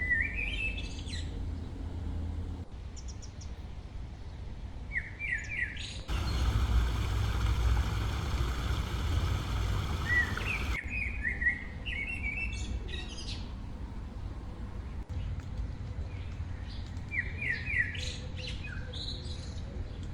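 A songbird singing a short phrase of quick chirping notes, repeated several times, over a low rumble. For several seconds in the middle a louder, even rushing noise takes over.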